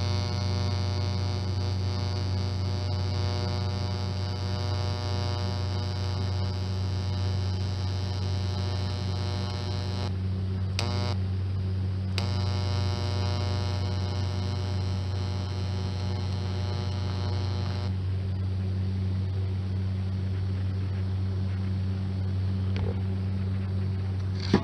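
Electric arc welder at work: a steady mains hum throughout, with the buzz of the welding arc running for about ten seconds, breaking off briefly, then running again for about six seconds before it stops.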